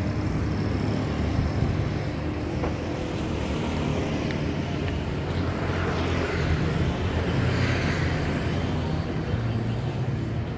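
Road traffic noise: motorbikes and cars running and passing along a town street, a steady rumble that swells a little about halfway through as a vehicle goes by.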